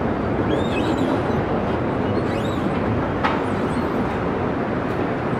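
Steady hum and rush of a moving escalator and the mall around it, with a few faint high squeaks in the first half.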